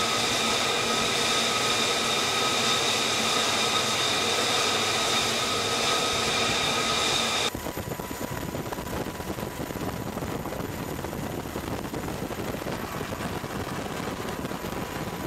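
Steady jet-turbine whine on a carrier flight deck, with several steady high tones over a rushing noise. About seven and a half seconds in it cuts off suddenly and gives way to a quieter, even rushing noise.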